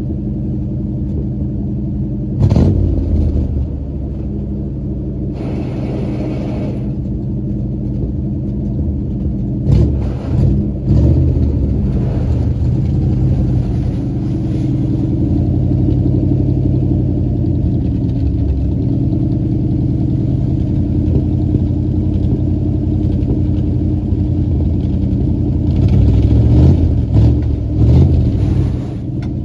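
1968 Dodge D300 tow truck's engine running steadily, its revs rising briefly about two seconds in, again around ten seconds, and twice near the end, with a few knocks alongside the rev changes.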